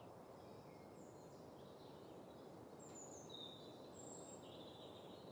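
Faint birds chirping, several short high calls over a soft steady hiss of ambience.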